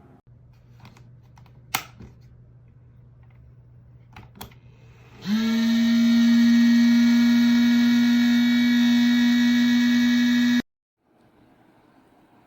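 A few soft clicks over a faint hum, then about five seconds in a loud, steady electric hum starts abruptly, its pitch settling within a moment, and cuts off sharply about five seconds later.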